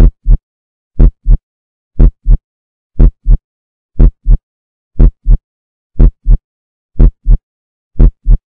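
Heartbeat sound effect: a deep lub-dub double thump repeating evenly about once a second, with silence between beats.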